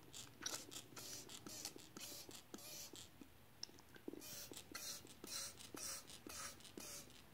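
Hand-pump trigger spray bottle spritzing into a mouth: a quick series of short hissing sprays, about two a second.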